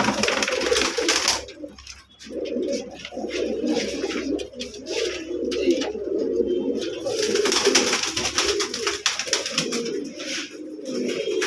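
Several domestic racing pigeons cooing continuously, a low warbling drone of overlapping coos. Two bursts of hissing rustle come through, one about a second long at the start and another around seven to nine seconds in.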